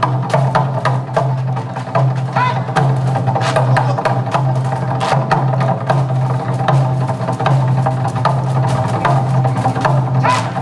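Korean barrel drums (buk) struck in a fast, dense rhythm of sharp stick hits, over a steady low tone from the accompanying music.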